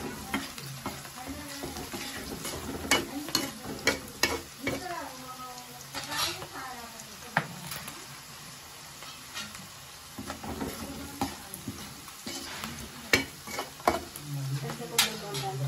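Onions, green chillies and masala frying in oil in an aluminium kadai, sizzling steadily as they are stirred with a metal ladle. Now and then sharp clicks and scrapes come from the utensil striking the pan.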